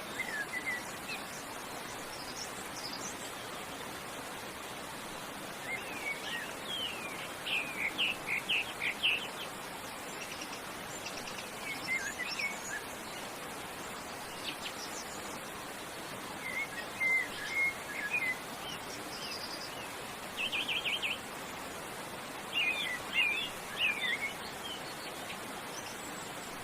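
Songbirds calling in short high phrases of chirps and trills every few seconds, one a fast even trill, over the steady rush of a waterfall.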